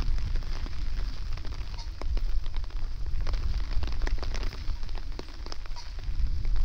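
Rain pattering in irregular sharp drops, over a heavy, uneven rumble of wind buffeting the microphone.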